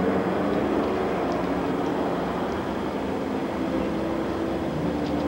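Steady outdoor street noise: a low rumble like traffic or a running vehicle, picked up by a camcorder microphone.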